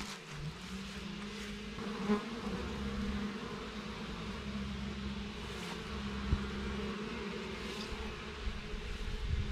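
Honeybees buzzing as they fly around the entrances of wooden beehives, a steady hum. Two brief knocks, about two and six seconds in.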